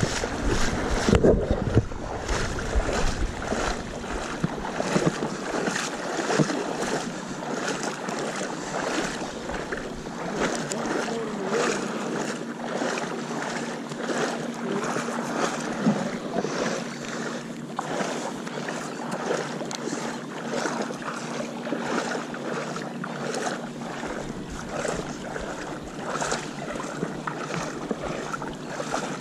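Shallow seawater lapping and sloshing right against the microphone in an uneven, continuous splashy wash. Wind buffets the microphone for the first couple of seconds.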